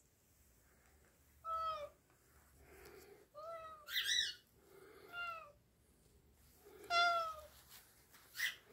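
A cat meowing about five times, each meow short and dropping in pitch at its end.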